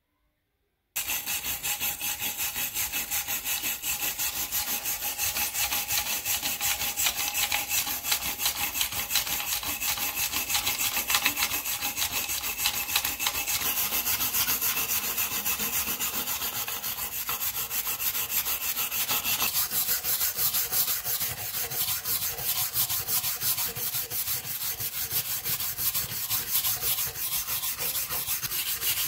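Hand wire brush scrubbing rust off the corroded metal end cap of an old sword scabbard in rapid strokes, starting about a second in.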